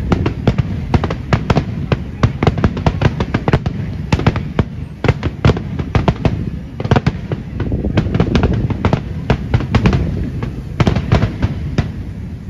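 Aerial firework shells bursting in a rapid barrage: several sharp bangs a second over a continuous low rumble, thinning slightly near the end.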